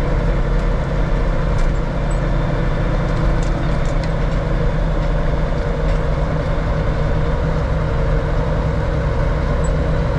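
Kenworth log truck's diesel engine running steadily as the loaded truck drives down a mountain road.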